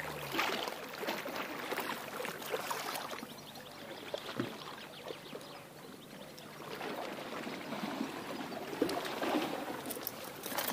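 Small waves lapping and splashing irregularly against a rocky shoreline, a little quieter around the middle.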